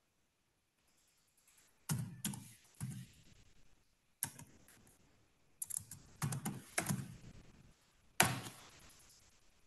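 Typing on a computer keyboard: four short runs of keystrokes separated by brief pauses.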